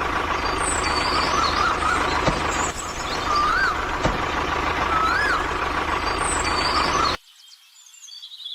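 Loud, steady machine or motor noise with a constant whine, with bird chirps over it. It cuts off abruptly about seven seconds in, leaving only faint bird calls.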